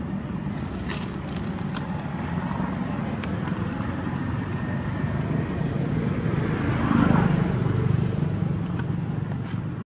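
Steady low traffic rumble with a motor vehicle driving past, swelling to its loudest about seven seconds in and then fading.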